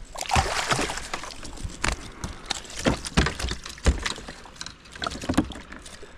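River water splashing and sloshing, with several short sharp knocks scattered through it.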